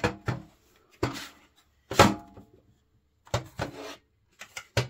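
Hard plastic toy playset parts being handled and set down on a wooden tabletop: a series of short knocks and clatters, the loudest about two seconds in.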